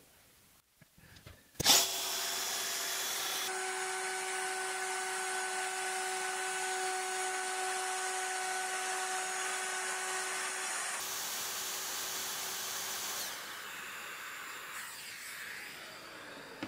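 Festool plunge router switched on about two seconds in and running at a steady high whine while cutting a V-groove in an MDF board. It is switched off a few seconds before the end and winds down, its pitch falling.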